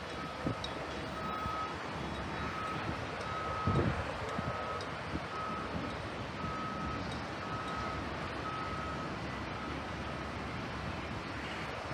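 Vehicle reversing alarm sounding a single high beep over and over at an even pace, stopping near the end, over steady outdoor noise.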